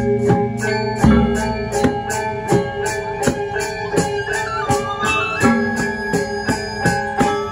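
Balinese gamelan gong ensemble playing: bronze metallophones struck in an even beat of about three strokes a second under sizzling cymbal strokes, with a low gong tone held near the start and a wavering flute melody over the middle.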